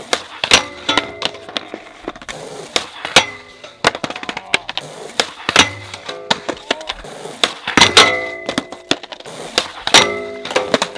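Skateboard pops, landings and slides on concrete and a metal flat rail: a run of sharp, irregular clacks and slaps, with the rail ringing after the harder hits, twice for about a second near the end.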